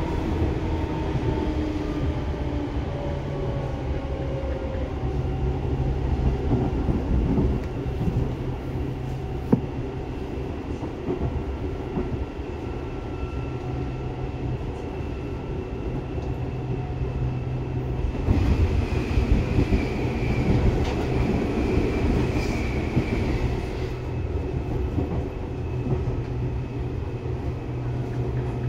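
Onboard running sound of a Seibu 2000-series electric train: a steady low rumble of wheels on rail, with traction-motor whines gliding in pitch, falling near the start and higher tones rising and falling about two-thirds of the way through.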